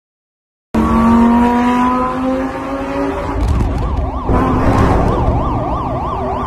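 An emergency vehicle's siren sweeping quickly up and down, about two to three sweeps a second, over a low rumble of traffic. Before the siren, a pitched tone slowly falls in pitch. The sound cuts in suddenly about a second in.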